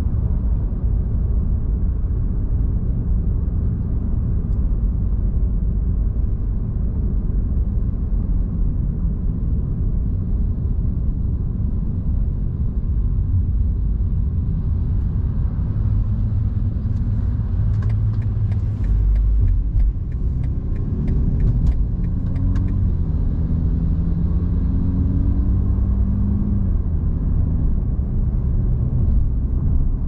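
Car travelling at freeway speed: a steady low road and tyre rumble with engine noise. Around the middle, an evenly spaced ticking runs for about six seconds, in step with a lane change to the left, like a turn signal.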